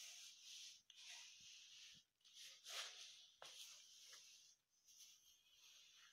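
Faint rustling and scraping of nylon-stockinged feet moving against suede high-heeled boots, coming in short stretches with brief pauses and a few light clicks.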